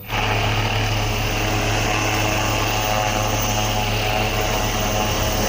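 Helicopter sound effect: a steady rotor and engine noise that cuts in suddenly and runs without change.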